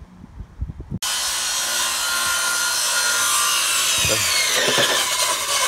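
A power tool running loudly, starting abruptly about a second in: a dense hiss with a whine that slides down in pitch over the last couple of seconds.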